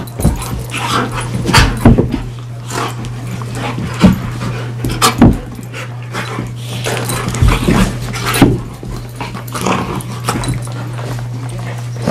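Two dogs, a retired greyhound and a Labrador retriever mix, play-fighting: an irregular string of short vocal noises and scuffles, with no steady rhythm.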